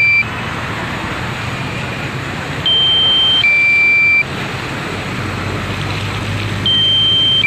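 Low-battery warning alarm of the DJI flight app for a Mavic Pro drone: a two-tone electronic beep, a higher tone then a lower one, each just under a second long. It sounds at the very start, again about three seconds in, and once more near the end, over steady background noise.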